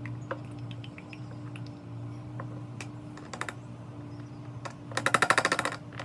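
Ratchet wrench clicking: a few scattered clicks, then a quick run of rapid ratcheting clicks about five seconds in, as a fastener is turned during an oil change. A steady low hum runs underneath.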